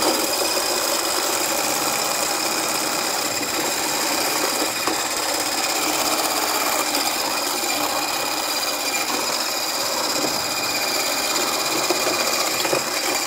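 Cuisinart variable-speed hand blender with a whisk attachment running steadily, whipping egg whites in a tall beaker: a steady high motor whine over the whirring of the whisk.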